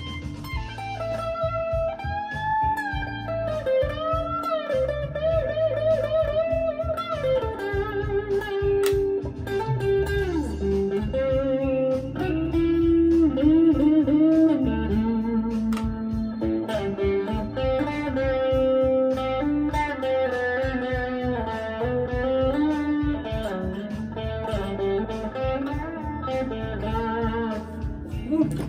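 Electric guitar playing a bluesy lead with string bends and vibrato over a backing track with drums and bass.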